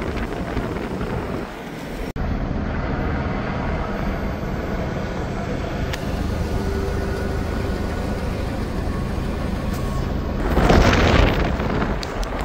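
Steady low rumble of wind buffeting the microphone over outdoor street noise, with a louder rushing gust about eleven seconds in.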